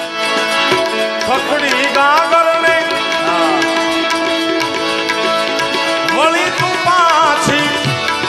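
Live Indian folk music: tabla strokes under steady held drone notes, with a melody in gliding, ornamented phrases coming twice.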